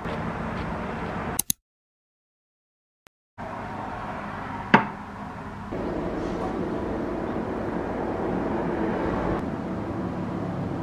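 Steady background noise that cuts out completely for about two seconds early on, then returns, with a single sharp click about five seconds in.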